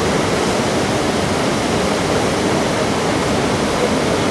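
Water pouring over a small river weir into churning white water below: a steady, even rushing.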